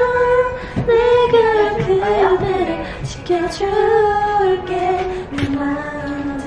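A young woman singing a slow melody with Korean lyrics, holding long notes that glide between pitches, with brief breaths between phrases.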